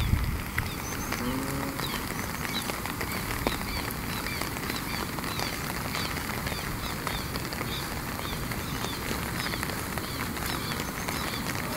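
Small birds chirping over and over in short, quick calls against a steady rushing background noise.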